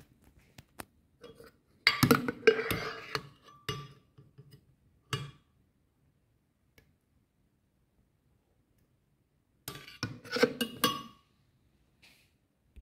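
Metal spoon scraping and clinking against the inside of a glass blender jar while thick strawberry ice cream is scooped out. The clinks come in two clusters, about two seconds in and again near ten seconds.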